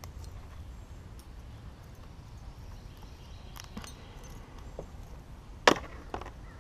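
Handling noise on a plastic kayak: a few light clicks about three and a half seconds in, then one sharp knock near the end followed by two smaller ones, as a just-caught fish and its spinnerbait are handled.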